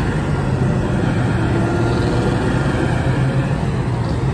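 Vehicles passing close by: a semi-truck and a car, with a steady low engine rumble.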